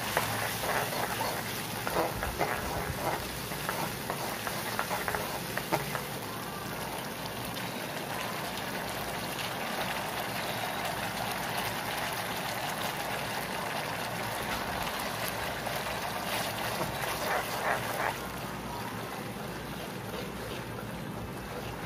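Sauce sizzling and bubbling in a non-stick kadai, with a steel ladle scraping and clinking against the pan as it is stirred through the first few seconds and again near the end.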